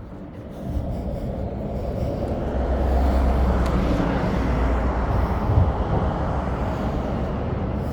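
A motor vehicle passing close by, its engine hum and tyre noise swelling to a peak about three to four seconds in, then easing off.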